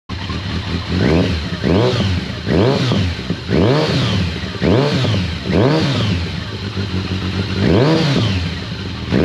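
Kawasaki ZRX1200R's inline-four engine revved in a series of quick throttle blips, about one a second, each rising and falling in pitch, with a longer gap near the end.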